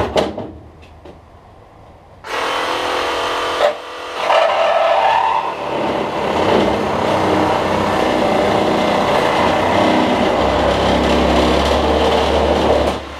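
A sharp knock, then about two seconds in an electric reciprocating saw starts cutting through the plastic front bezel of a CRT TV. It runs loud and steady with a brief dip a little over a second later, and stops near the end.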